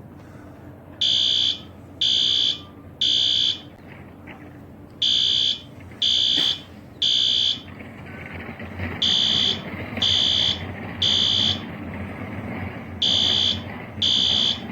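System Sensor P2RK outdoor fire alarm horn sounding a high, piercing tone in groups of three short blasts with a pause between, repeating about every four seconds: the temporal-three evacuation pattern of a fire alarm in alarm.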